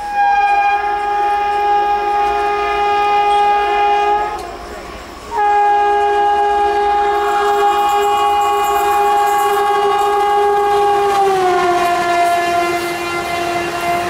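WAP-4E electric locomotive's horn sounding two long blasts, the first about four seconds and the second about nine seconds. The second blast drops in pitch about eleven seconds in as the locomotive races past, and the rush of the passing coaches rises near the end.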